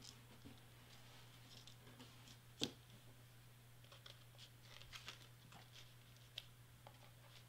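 Near silence: faint handling of cardstock pieces on a cutting mat, with small scattered taps and paper rustles and one sharper click about two and a half seconds in, over a low steady hum.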